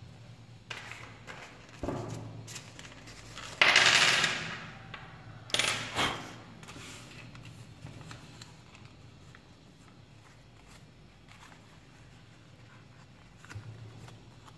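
Paper dollar bill being folded and creased by hand: short bursts of crisp rustling and crinkling, the loudest lasting about a second around four seconds in, then quieter handling.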